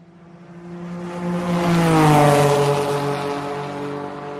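Engine pass-by sound effect: a motor hum swells, drops in pitch as it goes past about two seconds in, and fades out.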